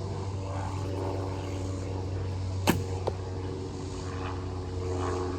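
A shot from an ILF takedown recurve fitted with silencer strips: one sharp snap of the string about two and a half seconds in, followed a moment later by a fainter knock of the arrow striking the target. Under it runs the steady drone of a propeller airplane flying over, growing louder near the end.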